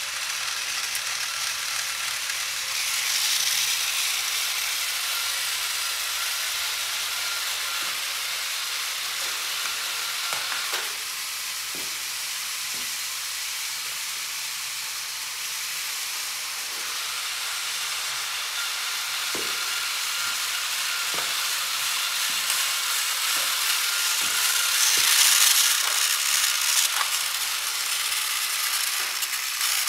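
Several battery-powered plastic toy trains running at once on plastic track: a steady high whirring of small motors and gears, with scattered small clicks and a brief swell in loudness near the end.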